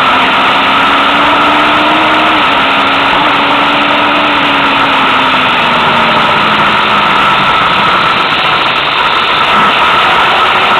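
Vehicle engine running while travelling along a road, its low note rising a little over the first couple of seconds and then slowly falling, under a loud, steady rush of wind and road noise.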